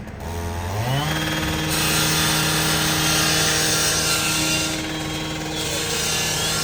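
Gas-powered firefighting saw revving up to full speed within the first second, then running steadily at high speed while cutting open ductwork on the fire building's roof.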